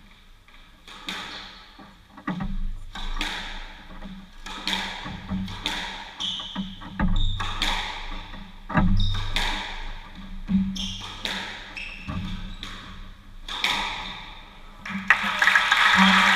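Squash rally: the ball struck by racquets and smacking off the court walls in a string of sharp, echoing hits about once a second. About a second before the end, applause breaks out as the rally ends.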